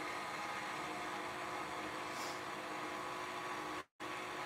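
Electric stand mixer running steadily, a motor hum with a thin whine, as it mixes muffin batter. The sound cuts out for a split second near the end.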